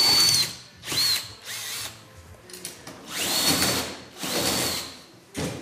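Power drill boring through aluminium carpet trim into a plywood base, run in about five short bursts, each a high whine that starts and stops within a second or so.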